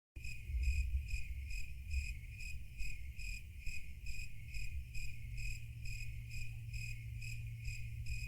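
Cricket chirping in a steady, even rhythm of about three short, high chirps a second, over a low rumble; the sound cuts in suddenly from silence.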